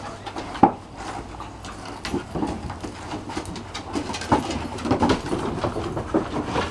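Dogs' claws clicking and paws tapping on wooden deck boards as several dogs move about, in an irregular patter with a sharper knock about half a second in.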